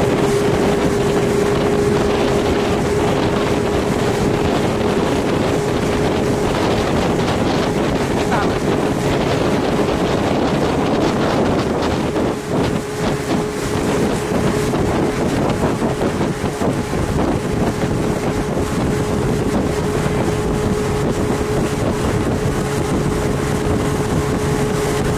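Speedboat engine running steadily at speed with one constant tone, with wind rushing over the microphone and water noise.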